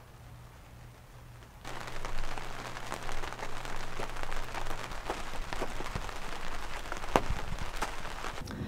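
Rain falling steadily on a tent's clear window panel: a dense hiss of drops with many individual sharp ticks as they strike. It comes in suddenly about a second and a half in, after a quiet stretch with only a faint low hum.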